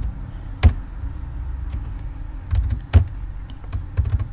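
Computer keyboard keys being typed: a few irregular, scattered clicks, the sharpest about two-thirds of a second and three seconds in, over a low steady hum.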